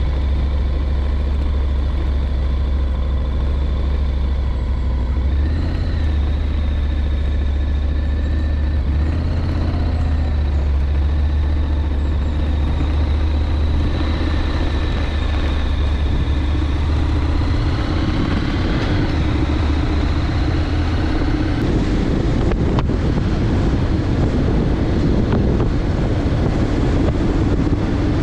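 Motorcycle engine running steadily at low speed. It rises in pitch as the bike accelerates about two-thirds of the way through, and after that wind rushing over the microphone fills the sound.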